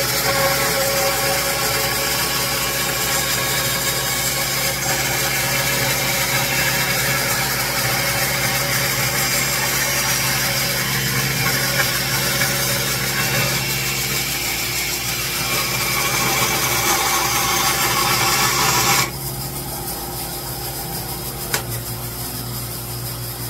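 Laguna 1412 bandsaw with a 3/4-inch Resaw King blade resawing a hardwood board, a steady sawing noise over the saw motor and the dust collector. About 19 seconds in the cut ends suddenly and only the quieter running of the machines is left. A single click comes near the end.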